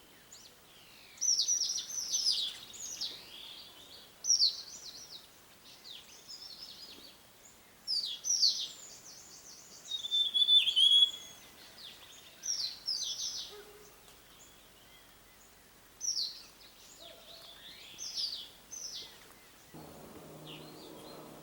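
Forest birds singing: short bursts of quick, high, down-slurred notes every second or two, with a brief trill about ten seconds in.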